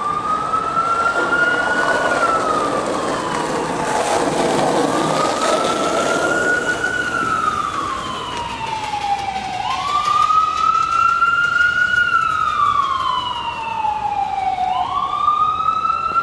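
An emergency vehicle siren wails, its pitch sweeping slowly up and down in cycles of about five seconds. A brief rush of noise comes about four seconds in.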